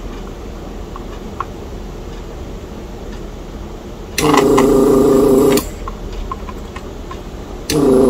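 Handheld desoldering gun's vacuum pump running as its trigger is pulled, sucking molten solder off a circuit-board joint: a steady buzz for about a second and a half some four seconds in, then a second, half-second buzz near the end.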